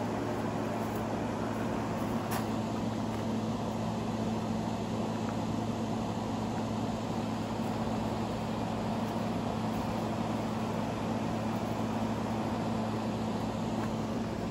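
Steady machine hum with a constant low drone, unchanging throughout; a faint click about two seconds in.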